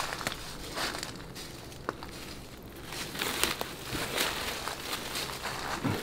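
Footsteps crunching through dry leaf litter, irregular steps that thin out for a moment in the first half, with a short sharp click about two seconds in, then come thicker again.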